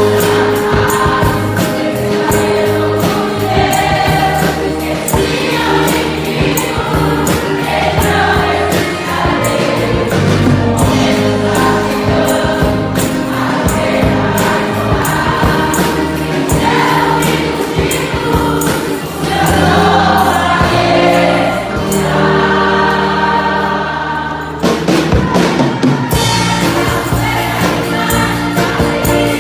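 Choir singing a gospel song over band accompaniment with steady percussion. Near the end the percussion drops out for a couple of seconds, then comes back in.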